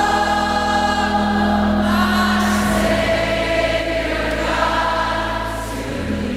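Choir singing held chords over a steady bass note, the chords shifting every couple of seconds.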